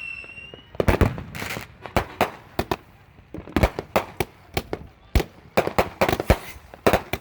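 Consumer fireworks and firecrackers going off: a string of sharp bangs and pops of varying loudness at irregular intervals, with a whistling firework's falling tone dying away in the first second.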